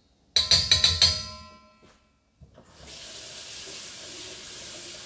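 A metal utensil is rapped about five times on the rim of a stainless steel mixing bowl, ringing briefly. From about three seconds in, a kitchen tap runs steadily as the utensil is rinsed.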